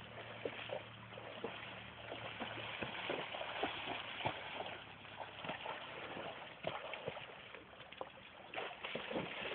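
A horse wading in shallow water, its hooves splashing and sloshing irregularly as it moves about.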